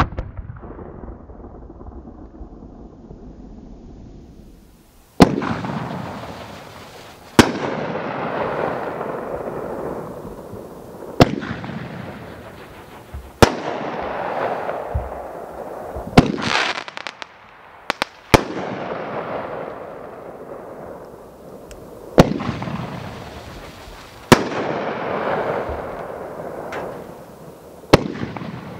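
Big Bad Wolf consumer fireworks cake firing its shots: about ten sharp, loud bangs, most two to four seconds apart with two close together in the middle. Each bang is followed by a couple of seconds of hissing that fades as the glittering stars burn out.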